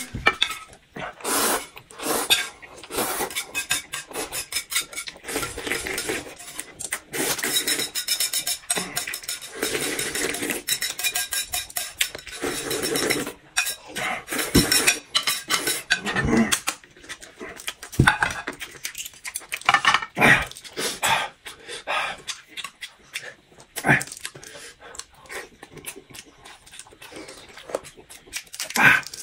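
Close-up eating sounds: noodles slurped from a bowl and chewed, with chopsticks clicking against plates and bowls.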